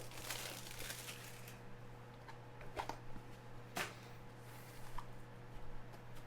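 Trading cards and pack wrappers being handled: a soft rustle, then a few light clicks, faint over a steady low hum.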